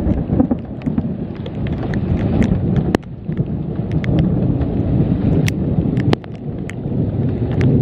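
Heavy rain, with drops hitting the microphone as sharp scattered ticks over a dense low rumble.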